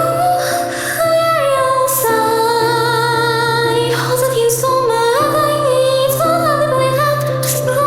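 Song: a woman singing long notes with vibrato over a steady low accompaniment, with a few short bright percussion hits.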